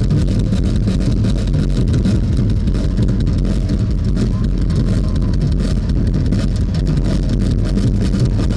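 Loud live rock music driven by a drum kit played hard, with rapid drum hits over a dense, distorted low rumble from the overloaded camera microphone.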